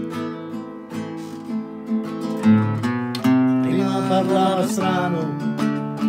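Classical nylon-string guitar strummed in steady chords, with a man's singing voice joining about halfway through.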